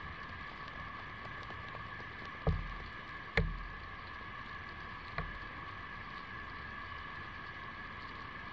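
A steady high drone of insects, in two close pitches, with three dull knocks about two and a half, three and a half and five seconds in, the middle one the loudest.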